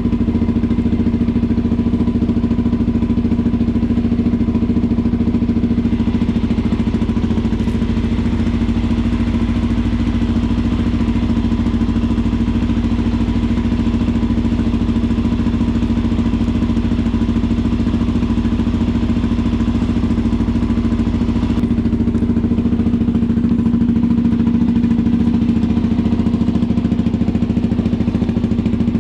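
Suzuki DR-Z400SM's single-cylinder four-stroke engine idling steadily through an aftermarket Delkevic exhaust.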